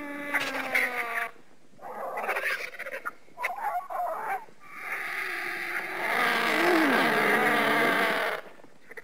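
Made-up creature sound effect for a monster moth: a run of animal-like cries that bend up and down in pitch, a few short ones and then a longer, louder one from about five seconds in until near the end.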